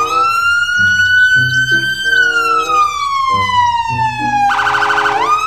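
Police car siren wailing: it rises, falls slowly over a couple of seconds, breaks into a fast yelp near the end and rises again. Background music with a steady beat plays underneath.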